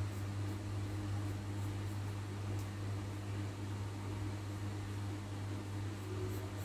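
A steady low electrical hum with a constant hiss, as from a fan or appliance running, loudest throughout. Faint light scratches of a pencil drawing on paper sit over it.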